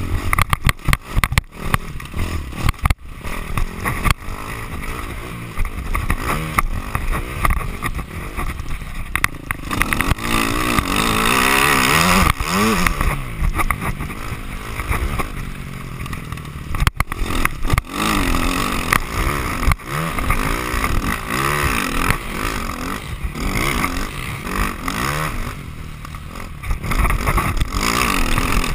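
Dirt bike engine revving up and down as it is ridden, with wind rushing over the microphone. A few sharp knocks from bumps, one about three seconds in and one past the middle.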